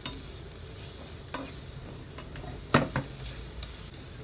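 Minced garlic sizzling in oil in a nonstick frying pan while a plastic slotted spatula stirs it, knocking against the pan a few times; the two loudest knocks come close together a little under three seconds in.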